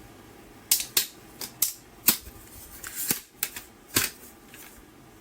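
Irregular sharp clicks and clacks, about ten in a few seconds, of hard parts being handled, most likely the plastic docking station stand being moved and adjusted.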